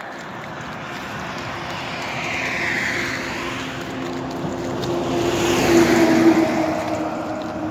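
Road traffic passing on the adjacent road: tyre noise swells and fades as vehicles go by. A louder vehicle with a steady engine hum peaks about six seconds in.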